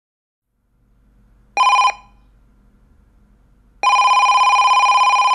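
Telephone ringing: a short ring about one and a half seconds in, then a longer, fast-warbling ring from near four seconds, over a faint low hum.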